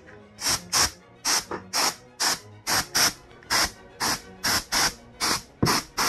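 Plastic laptop bottom cover being worked back into place: a quick series of about a dozen short, hissy scrapes and snaps, often in pairs.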